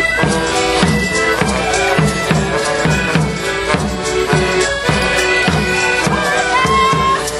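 Live folk band playing a traditional tune for Northwest clog morris dancing, with reedy sustained notes and a steady beat about twice a second.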